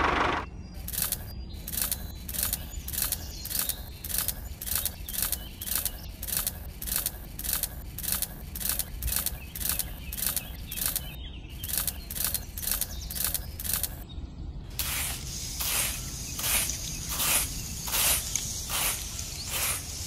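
A running motor cuts off in the first half-second. Then come rhythmic rasping strokes, about two a second, slowing slightly in the last five seconds.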